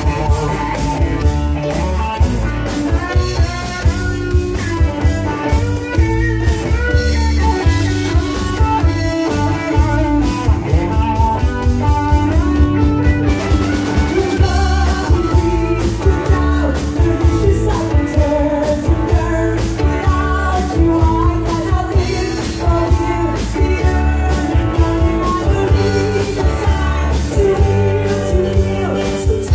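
Live rock band playing a song with female lead vocals, electric guitar, bass guitar, keyboards and a steady drum beat.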